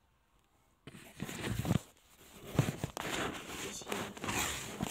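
Close handling noise: rustling and a few soft thumps right at the phone's microphone as books are handled and a fleece sleeve brushes past it. It starts about a second in.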